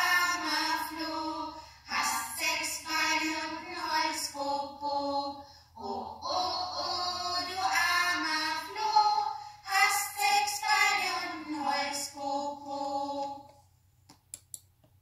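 Voices singing a German children's song in sung phrases with held notes. The singing ends about a second and a half before the end, and a few faint clicks follow.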